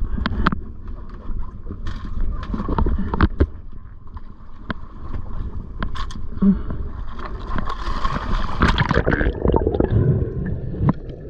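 Dive gear and a wooden speargun knocking and clattering against a boat's deck and gunwale, then a spearfisher going over the side into the sea: a splash about eight seconds in, followed by underwater bubbling and gurgling.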